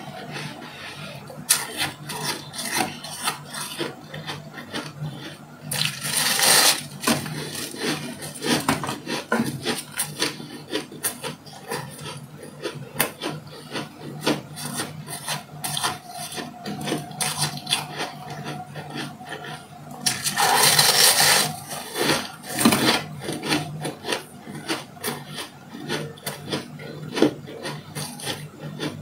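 Close-up crunching of frosty shaved ice being chewed, a rapid, irregular run of crisp crackles. Two louder, longer crunches come about six seconds and twenty seconds in.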